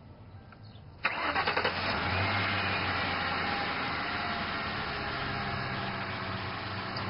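Car engine started: the starter cranks for about half a second about a second in, the engine catches with a brief flare, then settles into a steady idle, pumping the fresh oil through the engine after an oil change.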